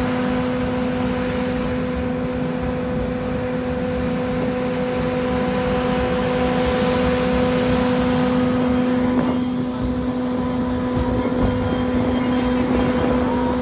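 Small locomotive pulling open passenger carriages along the rail line: a steady engine hum that holds one pitch, over the rumble and rattle of wheels on the track.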